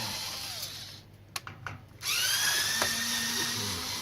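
Cordless drill-driver running down, then about a second of quiet with a few clicks. About two seconds in it starts again with a rising whine that settles to a steady run, backing screws out of a flat-screen TV.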